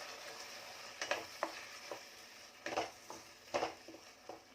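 Onion, capsicum and tomato–green chilli paste sautéing in oil in a pan, a light sizzle under several scraping stirs of a utensil against the pan.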